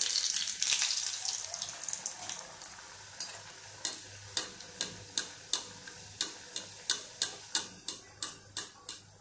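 A stuffed kothimbir vadi roll slid into hot oil: a loud burst of sizzling that settles into steady deep-frying. From about four seconds in, a slotted steel spoon ladling oil over the vadi clicks against the steel pan, two or three times a second.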